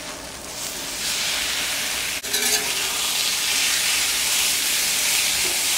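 Diced carne asada sizzling as it lands on a hot, oiled Blackstone steel flat-top griddle. The sizzle swells about a second in and then runs loud and steady, with a single sharp click about two seconds in.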